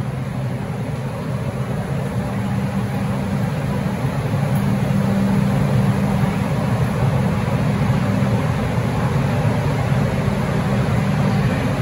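Steady rumble and hum of a New York City subway train at an underground platform, growing slowly louder.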